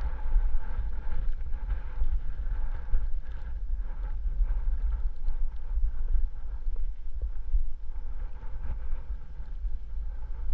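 Wind buffeting the microphone: a loud, gusting low rumble with a faint steady hum beneath it.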